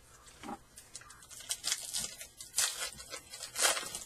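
A Topps Fire baseball card pack's foil wrapper being torn open: a few sharp, crinkly rips, the loudest near the end.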